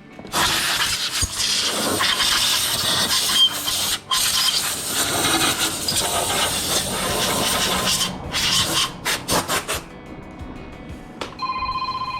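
Loud, rough rubbing or scraping noise for about eight seconds, then a few short strokes, with a short steady electronic beep near the end.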